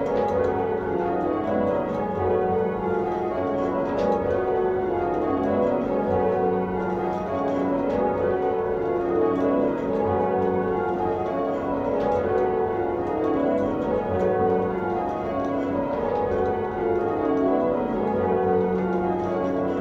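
Church bells being change-rung from the ringing chamber below, the ringers pulling the ropes by hand. The bells strike one after another in rows that step down in pitch, row after row without a break.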